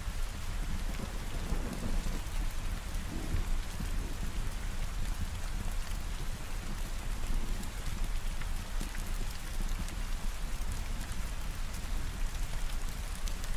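Steady heavy rain falling, with a low rumble of thunder about two seconds in.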